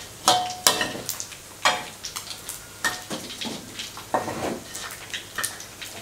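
A metal spatula or skimmer scraping and clinking against a metal wok again and again, while duck beaks fry in the shallow oil with a faint sizzle. Some strikes ring briefly.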